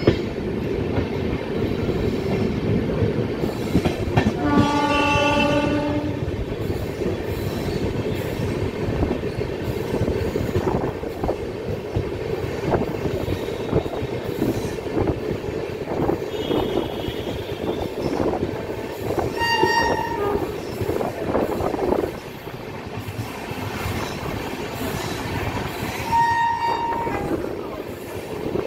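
Train running along the line with a steady rumble and rattle of wheels on track. Its horn sounds one long, lower blast about five seconds in, then shorter, higher hoots twice later on.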